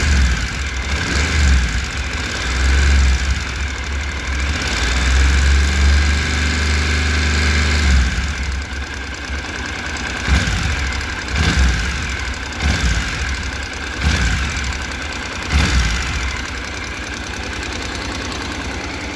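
2014 Honda NC750X parallel-twin engine idling, with short swells of rising speed several times, about a second or so apart in the second half. It makes the valve-train noise that the owner has heard since he loosened the valve clearances to spec during a first-time valve adjustment.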